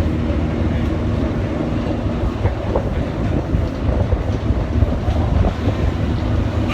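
Steady low engine drone of a ship under way, with a constant hum and wind buffeting the microphone.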